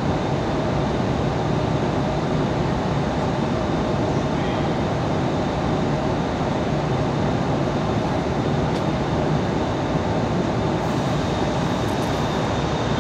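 Steady cabin noise of an Airbus A320 in flight: the rush of air along the fuselage mixed with engine drone, with a faint steady high whine.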